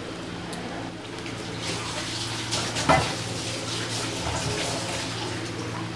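Urad dal masala vadas deep-frying in hot oil in a kadai: a steady bubbling sizzle over a low steady hum, with one brief sharp, louder sound about three seconds in.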